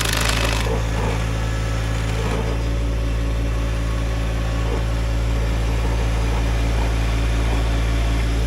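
Tractor engine running steadily, driving a PTO stump grinder with a 24-inch carbide-toothed wheel; a harsh grinding noise from the wheel cutting into the stump cuts off about half a second in, leaving the engine and spinning wheel running.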